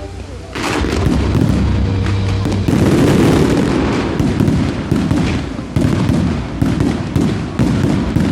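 Fireworks going off in rapid succession, a dense crackle of bangs that starts abruptly about half a second in and keeps on, with sharp louder bangs standing out near the end.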